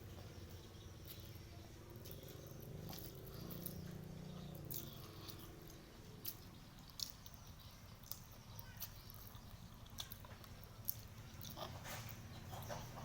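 Close-up eating sounds of someone chewing spicy fried chicken: scattered sharp crunches and mouth clicks over faint chewing.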